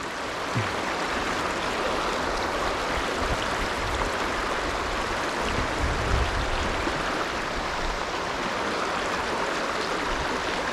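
Shallow river water running steadily over rocks and shoals, a continuous rushing sound.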